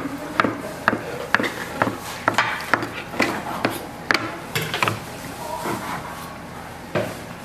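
Kitchen knife slicing through a rolled egg omelette, each cut ending in a knock of the blade on a wooden cutting board, about two cuts a second, thinning out after about five seconds.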